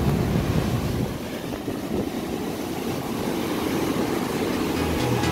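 Ocean surf breaking on rocks, mixed with wind rumbling on the microphone: a steady, low rushing wash.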